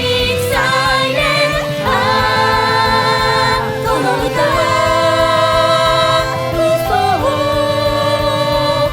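Music: a sung pop song, with voices holding long notes for a couple of seconds at a time over a band accompaniment with a steady beat.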